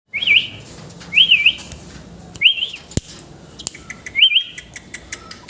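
Ringneck parrot (rose-ringed parakeet) giving a short, wavering whistled call four times, about once a second. A single sharp click is heard about three seconds in.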